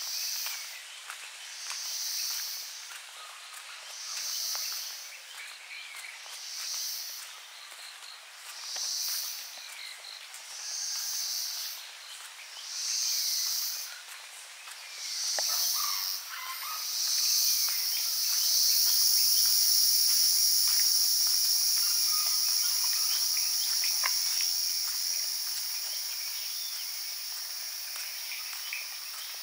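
Insects calling in high buzzing pulses about every two seconds, which about two-thirds through merge into one continuous, louder drone that slowly fades. Faint bird chirps sound underneath.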